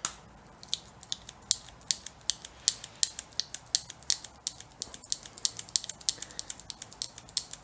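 A hand tool working an end link's grease fitting: sharp, small metallic clicks, about three or four a second and evenly paced.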